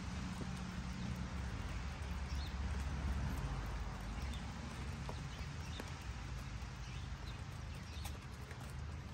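Asil chickens pecking grain off muddy ground, their beaks giving a few faint, scattered taps over a steady low rumble and hiss.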